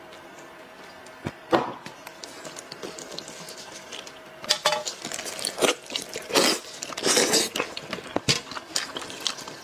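Sticky, wet handling of a sauce-covered braised head: a sharp knock about a second and a half in, then from about halfway on, irregular squelching and tearing as gloved hands pull the meat apart.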